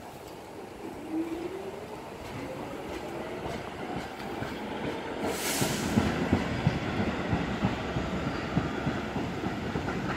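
R46 subway train pulling out, its traction motors whining upward in pitch as it accelerates, then its wheels clattering and rumbling over the track. A brief hiss about five seconds in.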